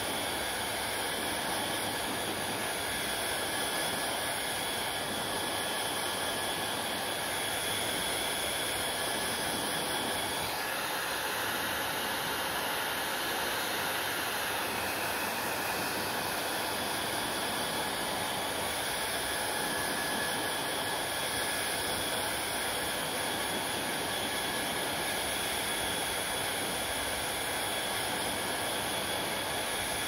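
Handheld hair dryer blowing steadily, a constant airy rush with a faint high whine. Its tone shifts slightly about ten seconds in, and again around fifteen seconds in, as it is moved.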